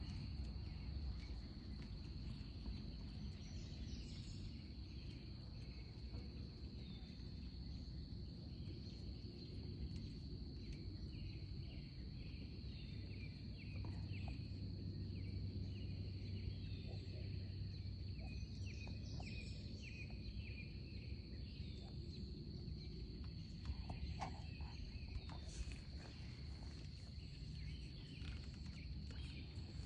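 Insects droning steadily on one even high note, with a few faint bird chirps over it.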